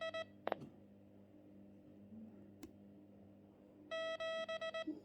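TYT MD380 handheld radio running TYT Tools firmware, sending the channel number in Morse code at 15 words per minute: a run of keyed beeps at one pitch ends just after the start, and another run comes about four seconds in. A few single sharp clicks fall between and after the runs.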